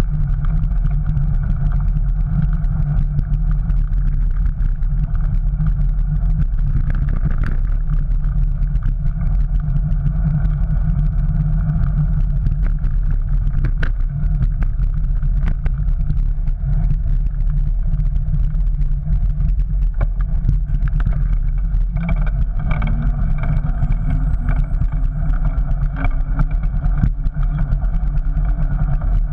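Steady low rumble of wind and road vibration on a bicycle-mounted GoPro action camera as the bike rolls along, with scattered small knocks from bumps in the surface.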